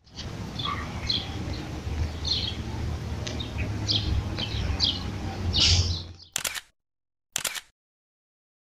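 Small birds chirping in scattered short calls over a steady low outdoor rumble; the sound cuts off a little after six seconds in, then two brief bursts follow about a second apart.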